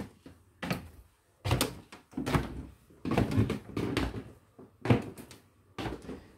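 A string of separate household knocks and thuds, a door among them; the sharpest knock comes about five seconds in.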